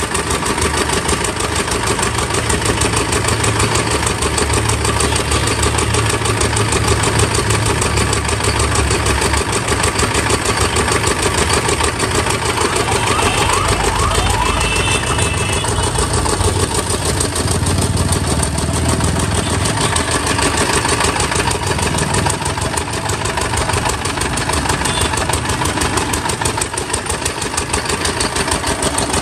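Sugarcane juice crushing machine running steadily, its motor giving a fast, even mechanical beat while cane is fed through the rollers.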